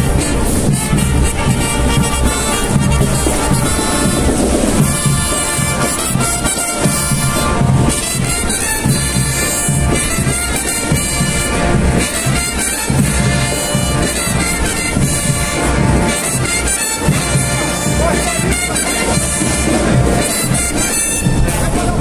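Brazilian marching band (banda marcial) playing a tune in full, brass instruments carrying the melody over steady marching drums.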